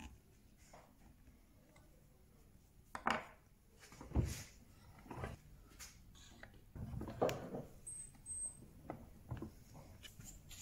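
Scattered knocks, taps and scrapes of small wooden pieces and a cardboard template being handled and set down on a wooden workbench, loudest about three and four seconds in and again about seven seconds in.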